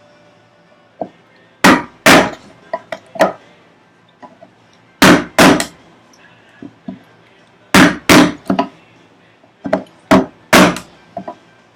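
Mallet striking a chisel, chopping out a housing dado in a wooden vise chop: sharp blows mostly in pairs about half a second apart, three pairs, then a quicker run of three near the end.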